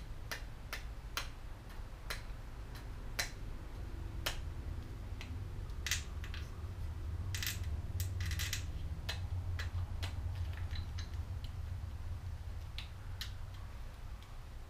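Spatula tapping and knocking against a resin 3D printer's build plate to break the printed parts free, in irregular sharp clicks, some in quick clusters, over a steady low hum.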